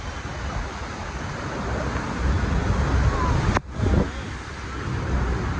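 Horseshoe Falls at Niagara, heard close below from a boat: a steady, heavy rush of falling water with wind buffeting the microphone. A single sharp click comes about three and a half seconds in.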